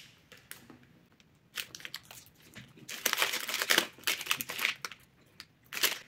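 Plastic snack-bar wrapper crinkling in short bursts as it is handled, along with close-up chewing of a nut bar.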